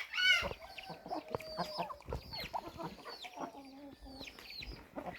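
Chickens clucking and calling, with a steady scatter of short, high chirps that drop in pitch, and a louder squawk right at the start.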